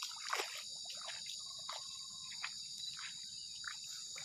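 Steady, high-pitched chorus of insects such as crickets or cicadas trilling without a break, with a few faint short clicks over it.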